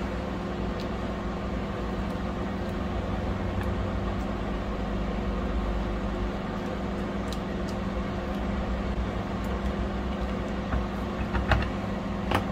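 A steady low hum, with a spatula lightly stirring rice and water in a plastic microwave rice pot, partway through cooking. A few light clicks near the end as the pot is handled.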